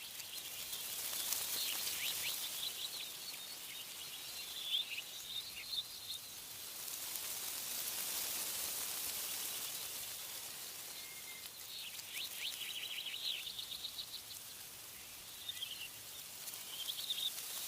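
Wind rustling through tree leaves in slow swells. Small birds chirp and trill in short bursts at several points throughout.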